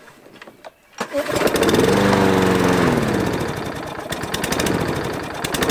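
Walk-behind lawn mower's small engine catching on the pull cord about a second in, then surging, its speed rising and falling and rising again instead of settling. It is not running right yet; the owner thinks fuel drained into it when the mower was on its side and that it needs more time for that to evaporate.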